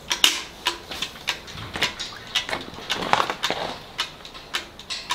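Newborn calf sucking milk from a bucket: a steady rhythm of short wet sucks about three a second, with a longer slurp a little past three seconds in.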